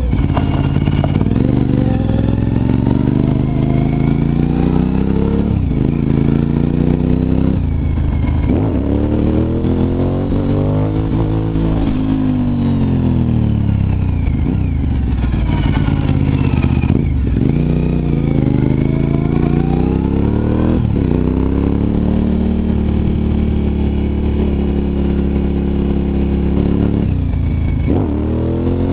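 Suzuki TL1000R's 90-degree V-twin engine under way, accelerating repeatedly: the pitch climbs through each gear and drops sharply at the shifts, about five times. Around the middle the revs rise and then fall away as it slows, and near the end it holds a steadier cruise before another shift.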